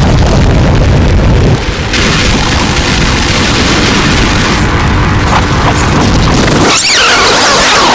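Harsh, loud turntable noise improvisation: a dense distorted rumble and hiss from records worked by hand and fed through a DJ mixer. The heavy low rumble thins about two seconds in, leaving a hissing wash. Near the end a quick falling sweep cuts through as the bass drops away.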